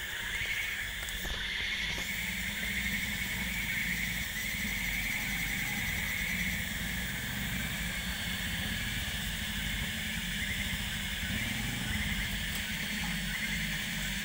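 Petrol Toyota hardtop's engine running steadily under load as it crawls along a muddy track carrying logs, with a steady high-pitched whine above the low rumble.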